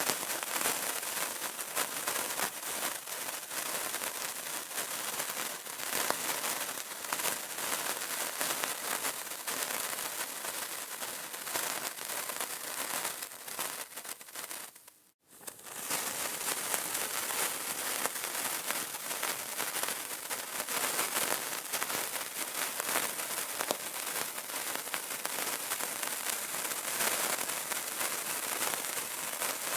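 A burning candle crackling: a dense, continuous patter of small crackles and pops. The crackling fades out briefly about halfway through, then comes back at the same level.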